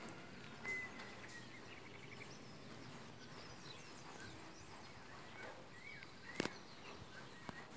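Faint outdoor background with scattered short bird chirps, and one sharp click about six seconds in.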